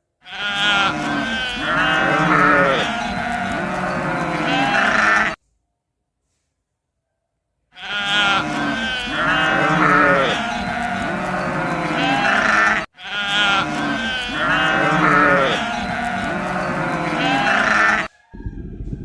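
Sheep bleating: several wavering calls in a five-second recording that plays three times over, with a pause of about two seconds after the first play. A low rumbling sound starts just before the end.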